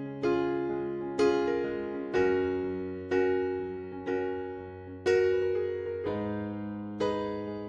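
Background music: electric piano playing slow chords, a new chord struck about once a second and left to fade.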